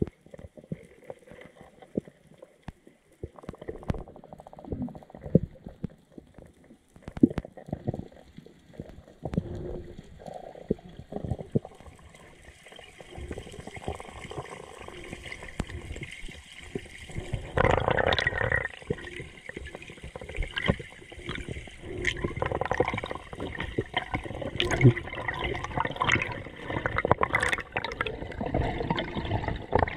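Muffled underwater sound through a diving camera: scattered knocks and clicks at first, then gurgling, sloshing water noise that grows denser and louder from about halfway, with a strong surge a little past the middle.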